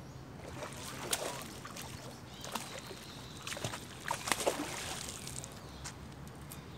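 A hooked catfish splashing and thrashing at the water's surface as it is reeled in close to the bank, in irregular bursts about a second in and again from about three and a half to four and a half seconds in.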